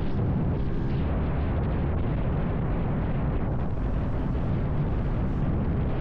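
Heavy wind rushing over the camera microphone on a Vitacci XMT 250 motorcycle running at about 60 mph, a steady dense roar with the engine's drone faintly beneath it.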